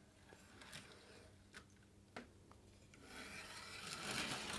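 OO gauge model of a Precedent-class 2-4-0 steam locomotive on a humped test track. A few faint clicks come first, then from about three seconds in its motor and wheels on the rails give a rough running noise that grows louder as it speeds up.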